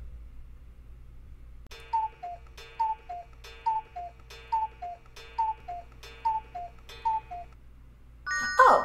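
Clock tick-tock sound effect: seven pairs of short pitched clicks, a higher tick then a lower tock, repeating a little faster than once a second. It starts near two seconds in and stops about a second before the end.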